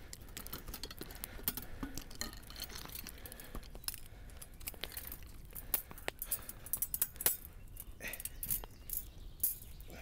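Freshly lit campfire of spruce and pine wood crackling, with many irregular sharp snaps and pops.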